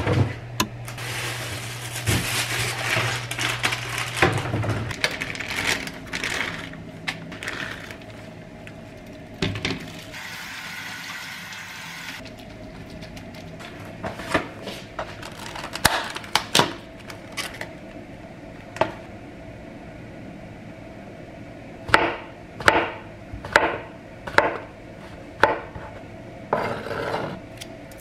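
Kitchen prep sounds: a refrigerator drawer opened and groceries handled, then tap water running into a plastic colander for a few seconds, then a chef's knife slicing mushrooms on a cutting board. Near the end the knife knocks on the board in a steady run of sharp strokes, about one or two a second.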